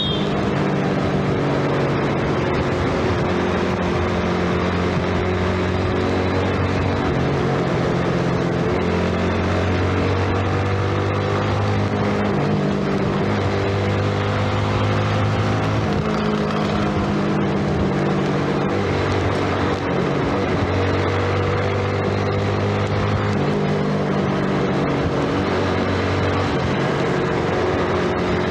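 Single-cylinder underbone motorcycle engine running under way, its note drifting up and down with the throttle. Steady tyre and wind noise from the wet road runs underneath.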